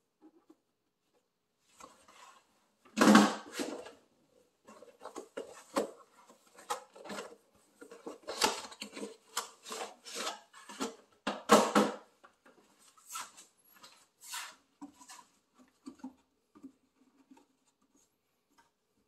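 A paper air filter element and its plastic air filter housing being handled and seated: irregular rubbing, scraping and knocks, the loudest about three seconds in, with a run of knocks and rubs between about five and twelve seconds, then only a few faint small noises.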